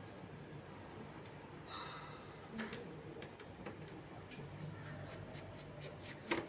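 Scattered light clicks and taps from hands and tools working on a laptop being taken apart, with a sharper click near the end.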